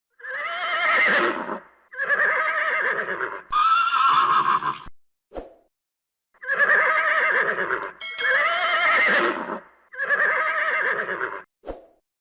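Horse whinnying: a series of about six wavering neighs, each about a second and a half long, starting and stopping abruptly with short gaps between them.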